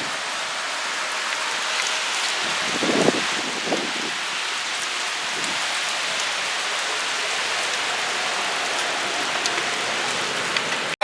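Steady rain falling, an even hiss throughout, with a couple of brief sounds about three seconds in.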